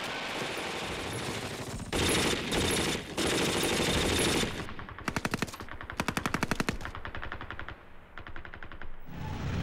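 Machine-gun fire in rapid bursts, loudest from about two to four seconds in. Just after the middle comes a run of distinct shots, about a dozen a second.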